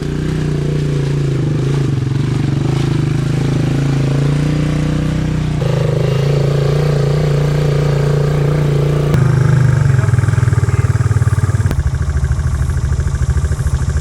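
Quad bike engine running steadily as the bike is ridden, its note shifting abruptly a couple of times, about six and nine seconds in.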